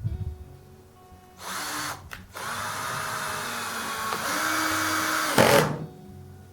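A handheld power tool working wood: it runs briefly, stops, then runs for about three and a half seconds with its pitch shifting under load, ending in a louder burst before it cuts off. Soft acoustic guitar music plays underneath.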